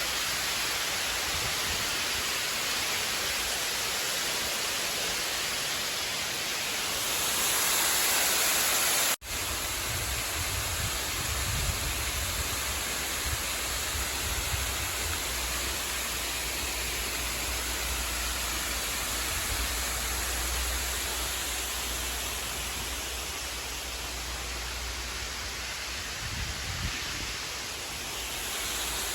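Steady rushing noise of flowing water. About nine seconds in there is a brief dropout, and after it a low rumble comes in under the rushing.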